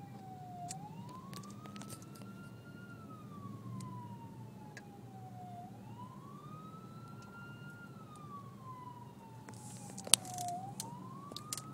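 A siren wailing, its pitch slowly rising and then sliding back down about every five seconds, over the low steady hum of a car's interior. A single sharp click comes about ten seconds in.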